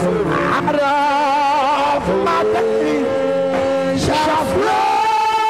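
Worship music: a man's voice singing long held notes with vibrato over a steady musical backing, in phrases that break off about two seconds in and again about four seconds in.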